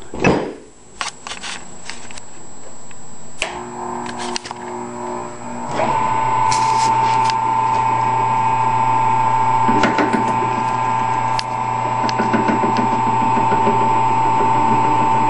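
A few knocks and clicks of metal parts being handled, then the converted 10 x 18 wood lathe's motor starts and runs with a steady whine from about six seconds in.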